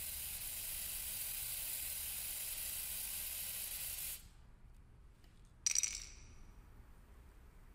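Aerosol spray-paint cans hissing in one long steady spray that cuts off abruptly about four seconds in. About a second and a half later comes a single short click with a brief ring.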